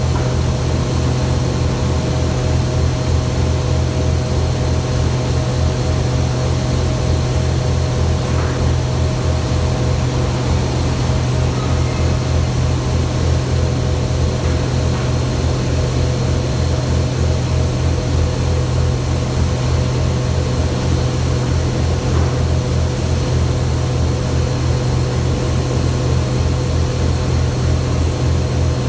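Steady, loud industrial drone of a ferronickel smelting furnace during tapping: a deep constant hum with a few steady higher tones over a rushing noise, unchanging throughout.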